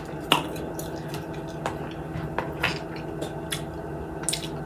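Close-up eating sounds while chewing fried chicken wings: a few scattered soft, wet mouth clicks and smacks over a steady low hum.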